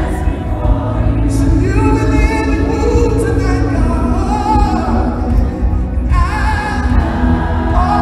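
Live gospel band and singers performing through an arena sound system, with sung melody lines over a heavy, steady bass, heard from high in the stands.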